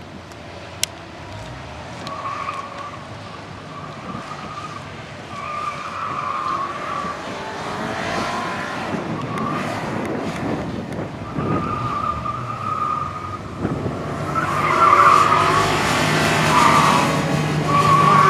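Subaru Impreza WRX running an autocross course: its tyres squeal again and again through the cone turns while its turbocharged flat-four engine revs up and down. The car gets louder as it comes closer, and is loudest over the last few seconds, with the strongest squeals.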